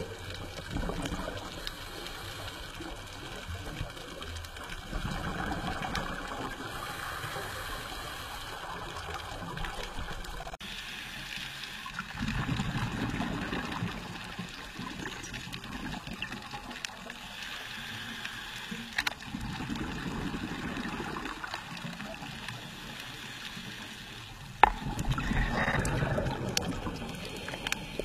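Underwater bubble gurgling from scuba regulators, swelling and fading every few seconds, with one sharp click near the end.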